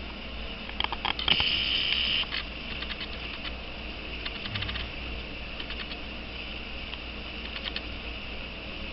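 Sleeping pet snoring: rattling, clicking snore breaths, loudest about a second in, with weaker rattles a few more times.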